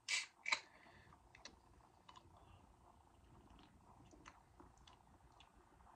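Carbonated drink can of Monster Energy Cuba Libre cracked open: two sharp pop-and-fizz bursts in quick succession right at the start. After that, faint scattered mouth clicks and swallows as it is sipped.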